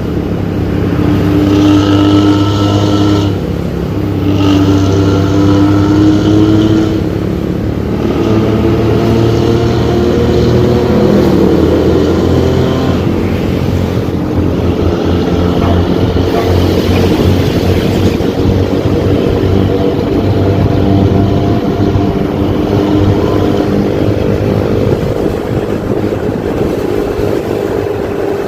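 Bus engine running under load through a loud aftermarket racing exhaust with a deep 'ngorok' (snoring) drone. Its pitch shifts up and down with engine speed, with brief drops in level about three and a half and seven and a half seconds in.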